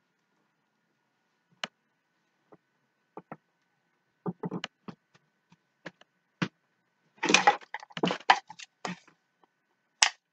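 Scattered clicks, knocks and rustling from handling and movement, busiest a couple of seconds before the end, then a single sharp clapperboard snap near the end.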